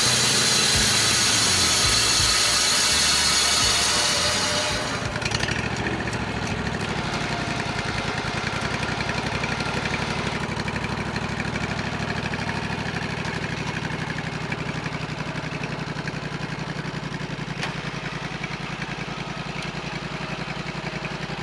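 Vallee Green Monster Wide bandsaw mill's blade cutting through a tulip poplar log, a loud hissing saw noise that ends about five seconds in as the cut finishes. The mill's engine then runs on steadily.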